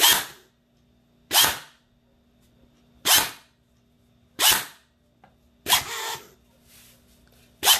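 Airsoft Version 3 gearbox with helical gears, wired straight to its motor and battery, test-run in short bursts: the motor whirs up and the gears cycle for about half a second, six times at intervals of about a second and a half, the last burst starting at the very end. It is a test run in which the owner finds the anti-reverse latch not working.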